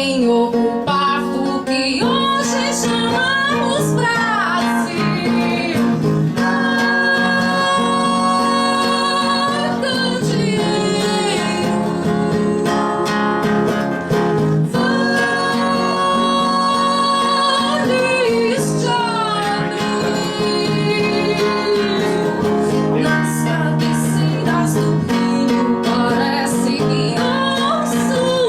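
Live acoustic music: acoustic guitar accompaniment under a melody of long held notes that slide from one pitch to the next.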